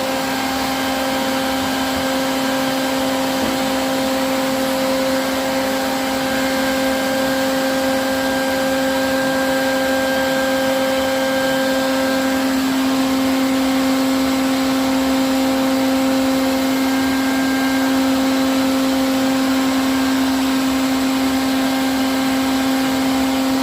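Bucket-type bee vacuum running steadily, its motor giving one unchanging hum over a rush of air as it sucks up honeybees.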